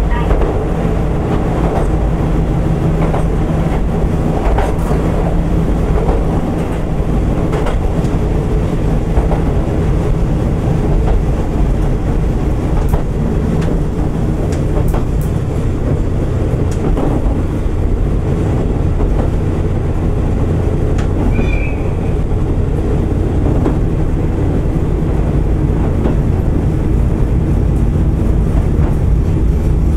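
Diesel railcar running along the line, heard from inside: a steady engine drone and the rumble of the wheels on the rails, with scattered clicks from the track.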